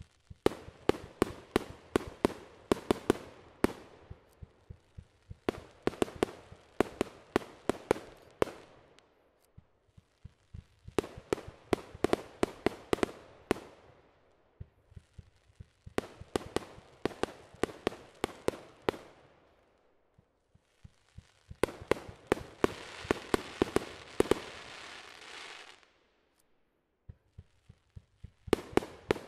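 Aerial fireworks going off in quick runs of sharp bangs, several a second, each run lasting about three seconds with short pauses between. In one longer run past the middle a steady crackle sounds under the bangs.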